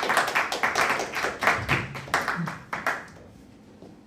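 A small audience clapping, dying away about three seconds in.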